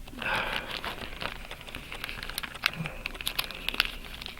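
Packing material crinkling and rustling in the hands, with many small irregular crackles, as a package is unwrapped.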